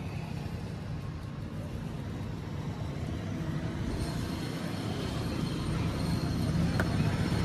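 Steady low background rumble, with a single faint click near the end.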